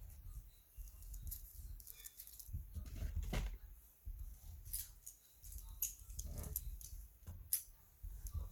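Fidget toys being handled close to the microphone for ASMR: scattered light clicks and taps over a low handling rumble.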